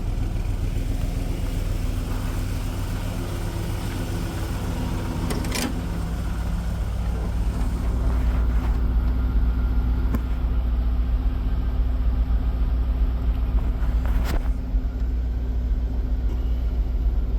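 LS-swapped V8 in a 1967 Chevy truck idling steadily, with two brief knocks about six and fourteen seconds in.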